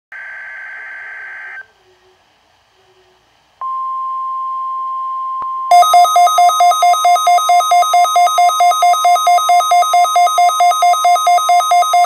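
Midland WR120EZ weather alert radio receiving a NOAA Weather Radio required weekly test. It opens with a short screechy burst of SAME digital header data. About two seconds later the steady 1050 Hz warning alarm tone starts, and a couple of seconds after that the radio's own loud pulsing alert beep joins it, about four pulses a second.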